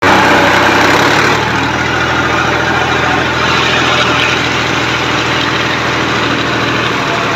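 Fiat tractor's diesel engine running steadily as the tractor drives along, heard close up from the driver's seat.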